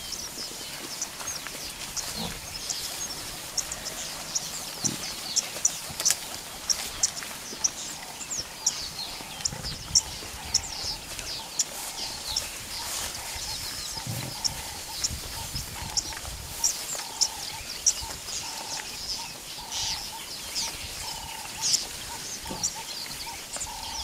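Wild bush ambience: birds call again and again with short, high chirps, over occasional low grunts from a grazing Cape buffalo herd.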